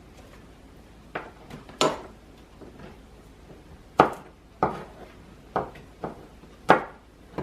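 Kitchen knife knocking on a cutting board: about eight short, sharp, irregularly spaced knocks as something is cut.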